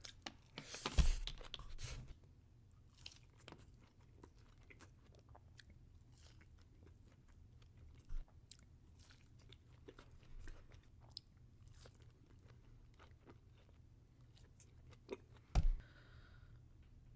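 Close-miked chewing and crunching of food, with a loud crunchy bite about a second in and a scatter of small crisp clicks from the mouth. A sharp knock sounds near the end.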